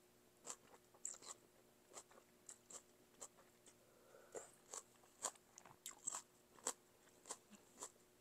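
Close-miked wet chewing and mouth clicks of a person eating noodle soup with beef: soft, sharp smacks at irregular spacing, a couple each second.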